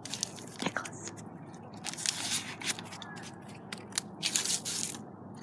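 Irregular crackling and rustling of crinkly material being handled, in short scratchy bursts that come thickest about two seconds in and again toward the end.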